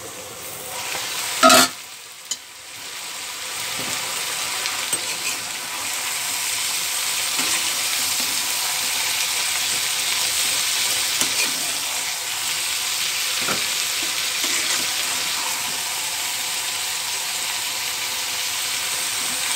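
Flat beans with onion and garlic sizzling in oil in a metal karai and being stirred with a steel spatula. About a second and a half in comes a sharp metal clank as the steel lid comes off, with a smaller knock just after, then the sizzling builds and runs on steadily.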